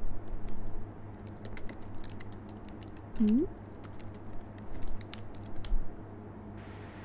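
Typing on a computer keyboard: irregular key clicks over a steady low hum, with a short rising tone about three seconds in.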